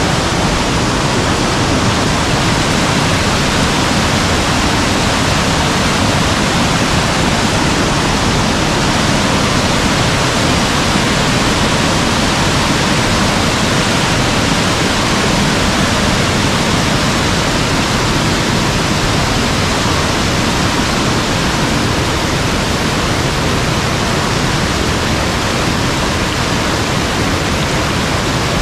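Rain-swollen mountain valley stream rushing steadily and loudly.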